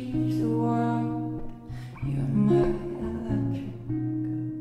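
Background music: a guitar-led song moving through sustained chords, ending on a last chord that rings on and slowly fades near the end.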